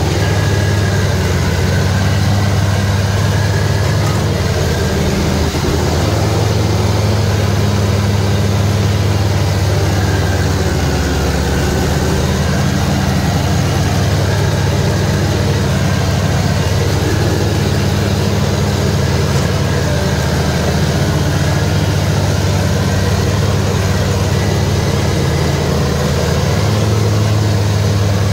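Diesel engine of a Scag Turf Tiger commercial zero-turn mower running steadily as the mower drives across a lawn.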